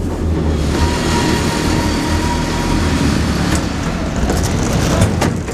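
81-717.5 metro car heard from inside the carriage as it draws up at a station platform: loud running noise with a steady whine for about two seconds, then a few sharp knocks near the end as the noise falls away.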